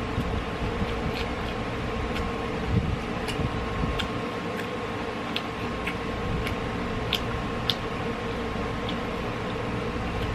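Mouth sounds of chewing fried chicken wings: scattered small sharp clicks and smacks at an uneven pace, a little more frequent in the middle, over a steady background hum.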